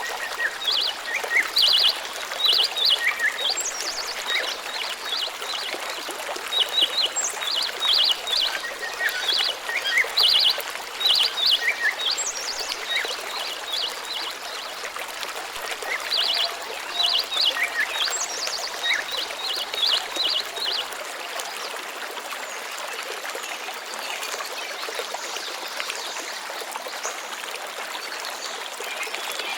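A stream flowing with a steady rush, with small birds chirping over it in quick clusters of short high notes and a few falling whistles; the birds fall away about two-thirds of the way through, leaving only the running water.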